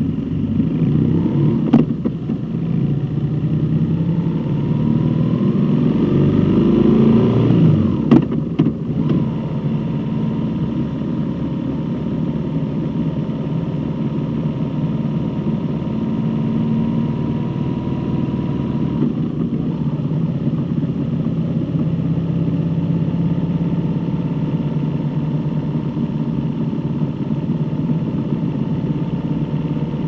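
Motorcycle engine pulling away, its pitch rising for about six seconds with a sharp click near the start and another near eight seconds in, then running steadily at a cruising speed.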